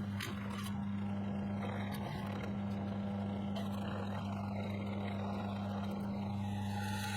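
An electric power tool running steadily on steel, with a constant low hum and a hiss over it.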